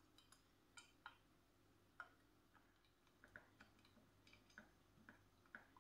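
Faint, irregular small metallic clicks as bolts are fed through the holes of a motorcycle tail-tidy bracket and started by hand.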